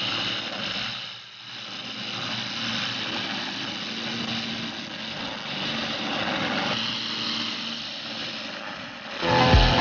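Grillo HWT 550 TILT wheeled string trimmer running steadily, its small petrol engine and whirring cutting line working through grass. About nine seconds in, louder music with heavy beats cuts in.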